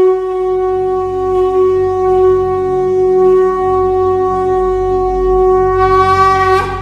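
Conch shell (shankh) blown in one long, steady note that bends upward in pitch just before it ends, over a low rumble.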